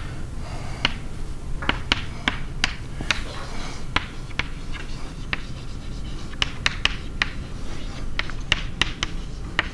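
Chalk writing on a blackboard: sharp, uneven taps and short scratches, a few a second, over a steady low room hum.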